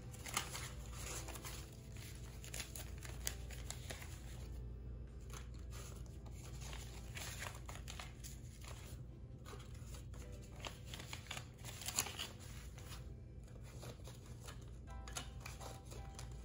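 Paper banknotes and a vinyl cash envelope rustling and crinkling as they are handled, in short irregular crackles, the sharpest just after the start and about twelve seconds in, over soft background music.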